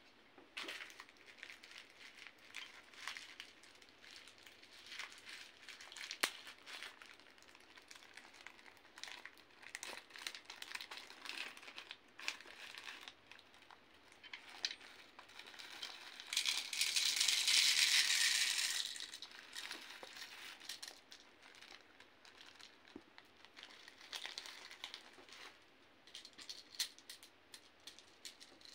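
Clicks and rattles of a clear plastic airsoft speed loader and a plastic bag of white BBs being handled, with the bag crinkling. Past the middle comes a rattling hiss of about three seconds, the loudest sound, as BBs pour from the bag into the speed loader.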